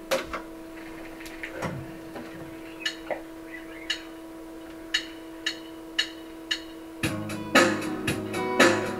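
Guitar: a steady low tone holds under a few sharp clicks that come closer together, then strummed chords start about seven seconds in.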